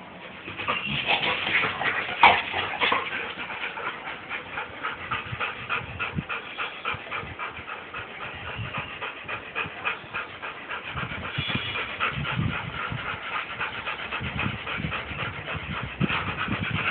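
Labrador retrievers panting fast and steadily, with a few high whimpers. The first couple of seconds are louder, with one sharp click.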